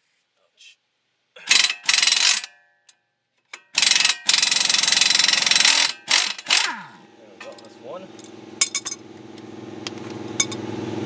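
Pneumatic impact wrench run in two bursts on the 22 mm strut bolt, the second about two and a half seconds long and winding down with a falling whine. From about seven seconds in a motor starts and runs with a steady hum that slowly grows louder.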